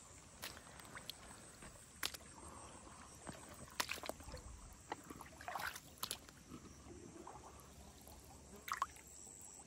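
Faint sloshing and small splashes of shallow, grassy water being disturbed by a hand and by wading, with scattered light clicks every second or so.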